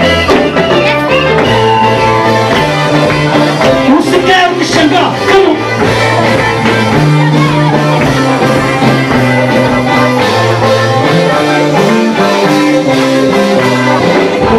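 Gospel worship song played by a band, with a bass line stepping between held notes, guitar, and singing voices.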